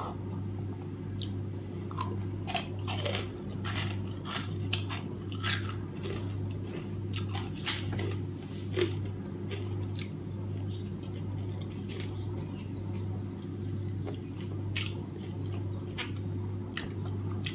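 Close-up mouth sounds of a person chewing steamed fish and rice, with many short wet clicks and smacks, over a steady low hum.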